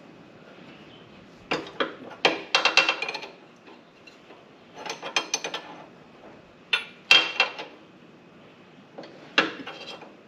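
Metal hand tool clicking and clinking against the oil drain hose fitting under a zero-turn mower's engine as it is worked loose. The clicks come in four quick clusters, about two seconds apart.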